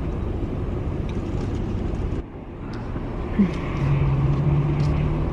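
Low, steady rumble of a car's idling engine heard inside the cabin. It drops suddenly about two seconds in, and after a short knock a steady low hum joins near the end.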